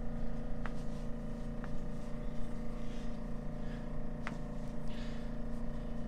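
Three faint, sharp clicks spread over a few seconds as a chiropractor manipulates a person's toes, the small toe joints popping under his grip, over a steady electrical hum.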